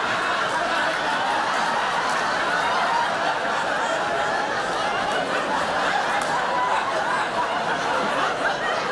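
Studio audience laughing in one long, unbroken laugh.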